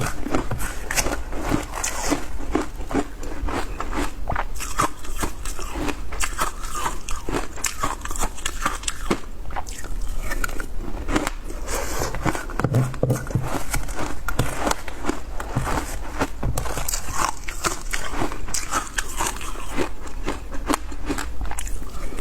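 Frozen matcha ice being bitten and chewed: a dense, continuous run of crunching and crackling.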